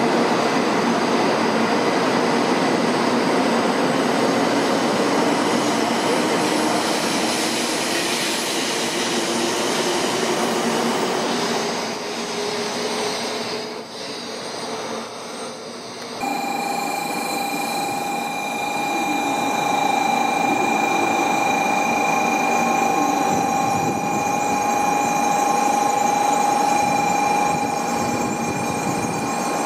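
A Shinkansen bullet train running close past the platform: loud rushing noise of the train with a slowly rising whine as it picks up speed. Then, after an abrupt change about sixteen seconds in, another Shinkansen slowly pulls in along the platform with a steady high squeal over a quieter rumble.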